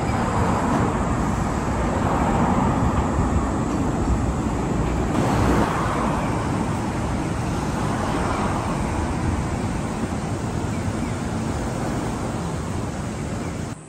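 Chiba Urban Monorail suspended train passing overhead, giving a loud, steady running noise from its rubber tyres rolling inside the box-girder track beam above.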